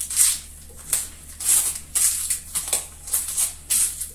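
A CPM 125V steel knife blade slicing through rope in a cut-count test: short rasping cuts, about two a second, each a brief hiss.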